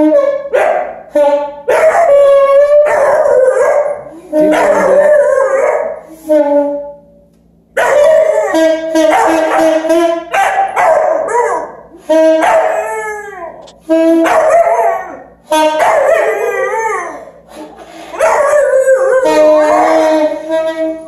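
A saxophone playing long held notes while a dog howls along with it, the howls wavering and sliding up and down in pitch over the notes, in phrases of a few seconds with short pauses between.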